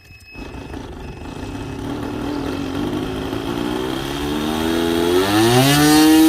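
Small model-airplane glow (nitro) engine running and being throttled up. Its pitch creeps upward, then climbs quickly near the end to a loud, steady high-pitched full-throttle note.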